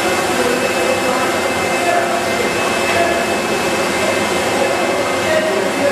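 Lollipop production-line machinery running with a steady whirring noise and a few constant whining tones.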